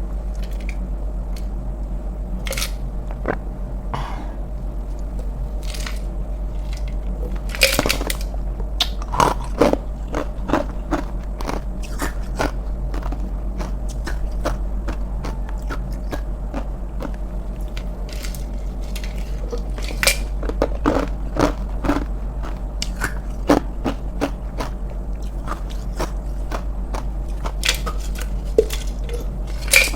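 Ice cubes being bitten and crunched between the teeth, close to the microphone: many sharp irregular crunches, coming thicker about a third of the way in and again through the last third, over a steady low hum.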